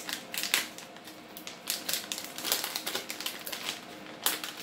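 Crinkling and crackling of a plastic anti-static bag being handled and opened by hand, an irregular run of sharp crackles and rustles with a louder snap about half a second in and another near the end.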